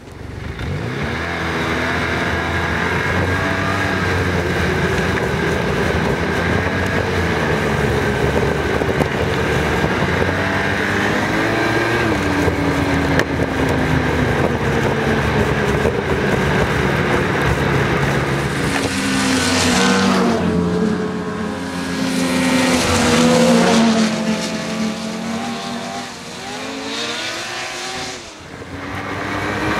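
Snowmobile engine running along a snowy trail, its pitch rising and falling with the throttle. A louder, harsher stretch comes about two-thirds through, and near the end a sled passes with a dip and rise in the engine note.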